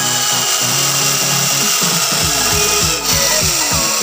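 Electronic background music with a repeating falling bass sweep from about halfway through, over a HILDA 16.8 V cordless drill running in wood.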